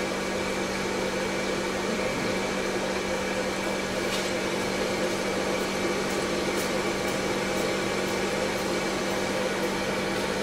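S&A RMFL-1000 laser chiller's water-supply pump running with a steady hum while the water supply switch is held, filling the chiller's tank with water.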